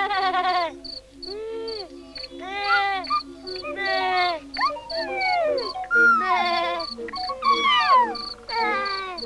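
Crickets chirping in an even pulse, about two or three chirps a second, under a run of loud, wordless calls that each slide down in pitch.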